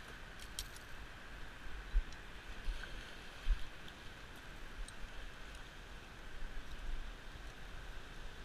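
Faint water sloshing and lapping around a float tube on the harbor, with a steady high hum behind it. A few light clicks come near the start, and dull bumps on the microphone come about two and three and a half seconds in.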